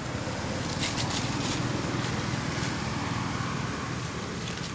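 Steady low rumble of outdoor background noise, with a few brief dry crackles about a second in.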